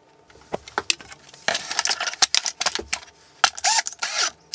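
Cordless drill being handled as a bit is fitted into its keyless chuck: a run of sharp clicks and rattles, with a short burst of the drill's motor about four seconds in.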